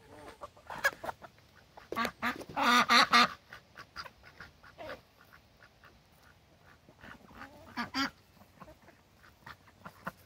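Domestic ducks quacking, with a loud run of quacks about two to three seconds in and shorter, fainter quacks later.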